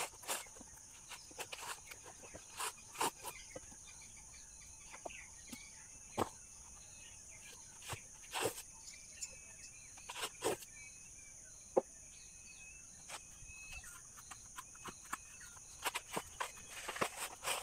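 Coconut husk being prized off on an upturned hoe blade: irregular knocks as the nut is driven onto the blade, with crackling and tearing of the fibrous husk as it is levered away. A steady high insect buzz goes on behind.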